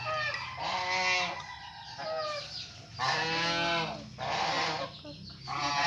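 A sick goat bleating repeatedly in protest as it is force-fed medicine; each bleat lasts about a second, with a wavering, arching pitch.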